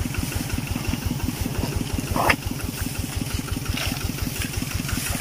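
Small single-cylinder engine of a two-wheel walking tractor idling with a steady, even chug. A brief louder sound comes about two seconds in.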